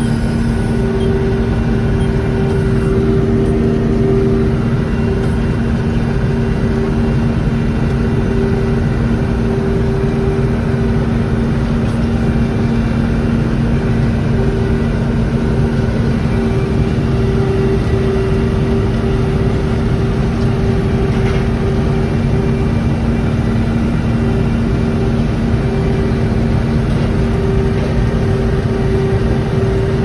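A vehicle engine running at a steady speed, a constant droning hum that does not change.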